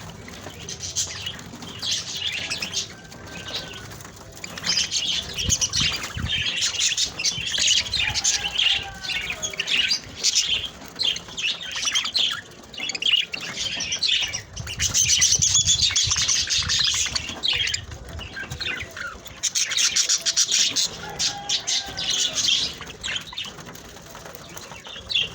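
A group of budgerigars chirping and chattering continuously, with many quick, overlapping high notes.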